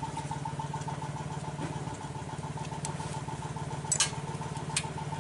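A small engine idling steadily in the background, under a few sharp plastic clicks as wiring connectors on a Yamaha Aerox scooter are worked loose, the loudest about four seconds in.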